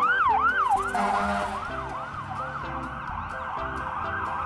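Fire rescue truck's siren yelping: quick rising-and-falling sweeps, about two and a half a second, loudest at first and growing fainter after about a second as the truck moves away.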